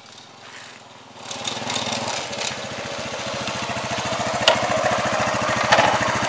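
Motorcycle engine running with a steady, rapid beat, growing louder about a second in as the bike rides closer, with a couple of sharp clicks near the end.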